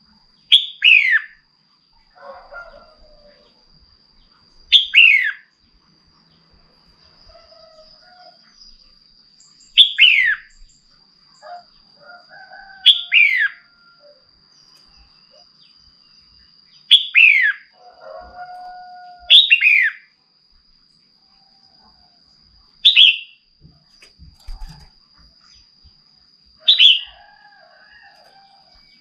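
Red-whiskered bulbul giving eight loud, short calls, each a quick downward-sweeping note, spaced a few seconds apart, with softer chatter between them. These are the female's calls used to excite male bulbuls into singing.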